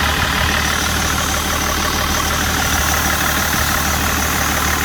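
BMW E39 Touring's engine idling steadily.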